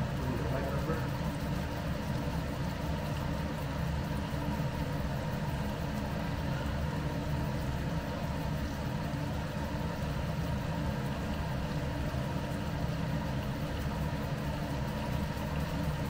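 Steady low hum and rush of a running kitchen range hood fan.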